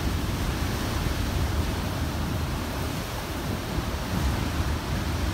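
Hurricane Dorian's tropical-storm-force wind and heavy rain: a steady rushing noise, with wind buffeting the microphone as a low rumble.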